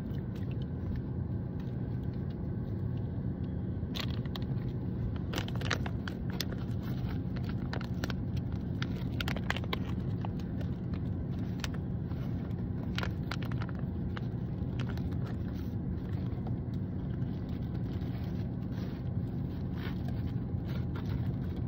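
Steady low rumble of a car's cabin on the move. Over it come scattered sharp crinkles and clicks of a plastic toy pouch being opened and handled.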